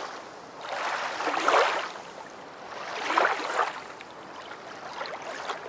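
Water washing in swells, like small waves breaking on a shore: two surges about a second and a half apart, each rising and falling away, then a fainter one near the end.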